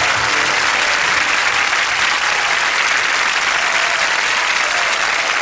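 Studio audience applauding steadily, with the last of the music dying away just at the start.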